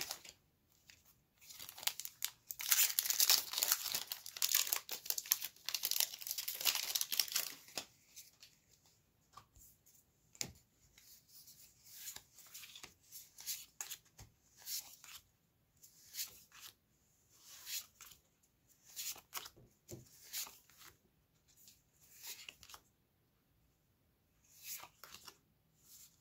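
Foil wrapper of a Magic: The Gathering booster pack torn open and crinkled for several seconds, then the cards slid one at a time off the stack, a short swipe every second or so.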